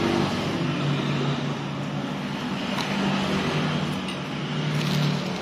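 A motor vehicle engine running close by, a steady low hum that swells and eases slightly, with a few faint clicks over it.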